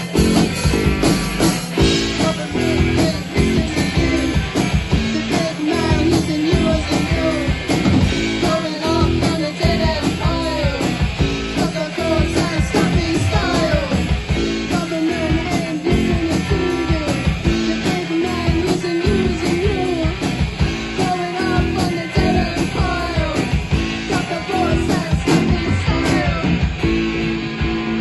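Rock music with guitars and a steady beat.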